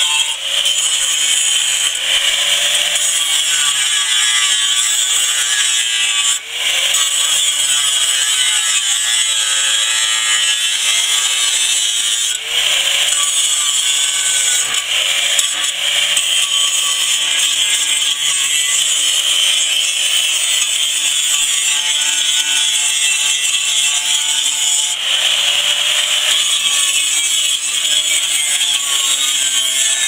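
Hand-held 4½-inch angle grinder with a general-purpose grinding disc grinding heavy rust off steel plate, loud and continuous. The motor's pitch wavers up and down as the disc is pressed harder and eased off, with brief dips about six and twelve seconds in.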